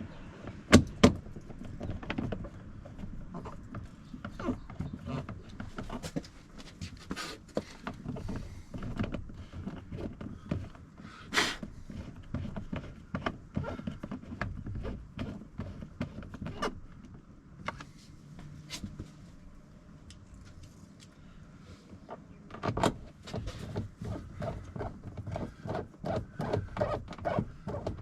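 Irregular clicks, knocks and light rattles of hands working on a car door's interior trim panel as it is refitted, with two sharp knocks about a second in.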